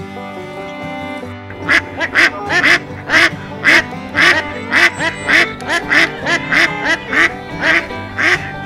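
A duck quacking over and over, about two loud quacks a second, starting about a second and a half in, over background music.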